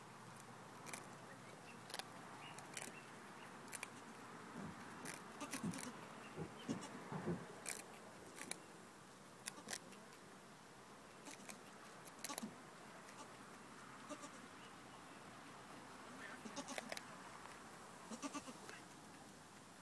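Goats with a few short bleats, amid many scattered sharp clicks and rustles.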